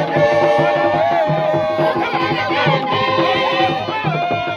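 Traditional folklore dance music: drums beating about two to three times a second under group singing.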